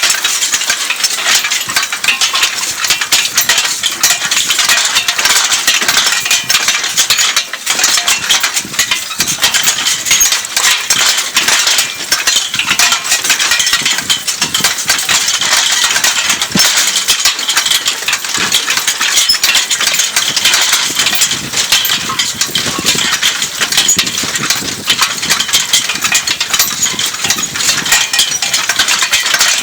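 Continuous metallic rattling and clinking of a horse-drawn IH cultivator and the team's harness chains as the tines work through sandy loam.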